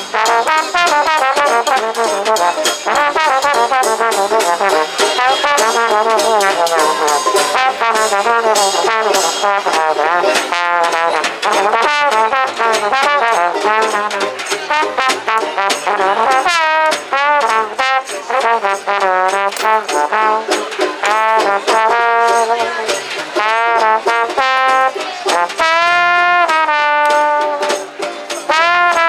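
Small swing jazz band playing live: a trombone carries the melody with sliding, bending notes over snare drum and cymbal, with double bass and electric guitar in the band.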